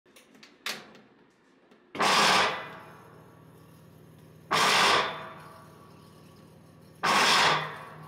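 GE top-load washing machine running, with three loud, harsh surges of noise about two and a half seconds apart over a low steady hum. This is the kind of abnormal washer noise that a damaged belt, clutch, shift actuator or agitator hub could cause.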